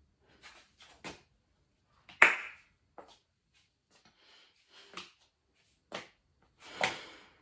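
Scattered handling noises: soft rustles and light knocks, with a sharp knock about two seconds in and a louder rustling thump near the end.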